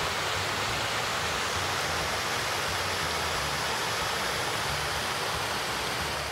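A rocky creek running over stones and small cascades: a steady, even rush of water.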